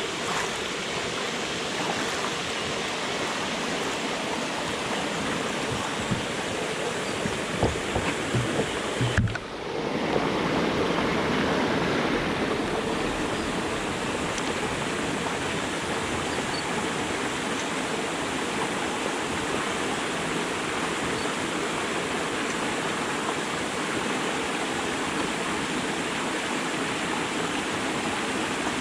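Steady rushing of water pouring through a river sluice, with a few low knocks about seven to nine seconds in. The sound drops out for a moment just after nine seconds, then the rushing carries on unchanged.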